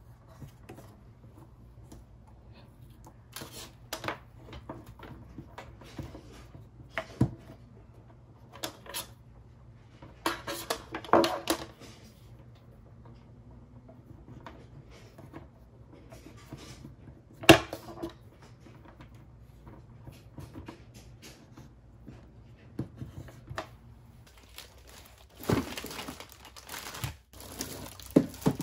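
Scattered taps, clicks and knocks of hands handling charging cables and a plastic cable clip on a desktop, with one sharp knock about two-thirds of the way through. Near the end, plastic mailer packaging crinkles.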